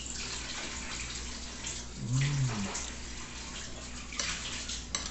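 A man chewing a mouthful of rice and beef with wet mouth sounds, with a short hummed 'mm' about two seconds in. Near the end, a metal fork clicks and scrapes on the plate.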